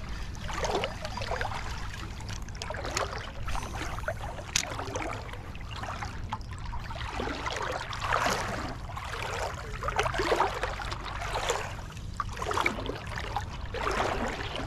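River water trickling and splashing, with soft swishes every second or two.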